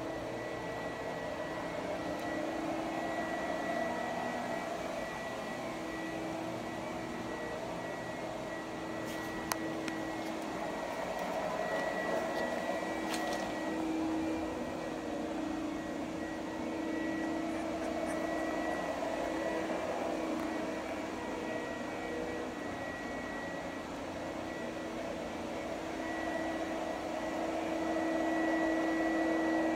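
A steady mechanical hum with a faint high whine running through it, with a couple of faint clicks around the middle.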